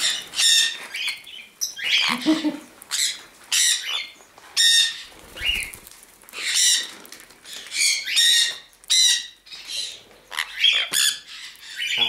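Sun conures screeching: harsh, high squawks repeated one or two times a second.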